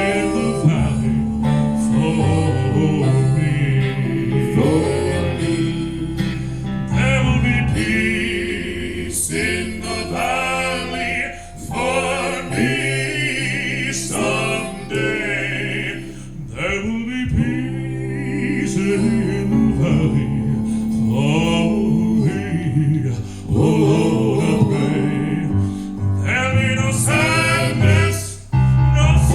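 Gospel music: voices singing together over a steady instrumental accompaniment.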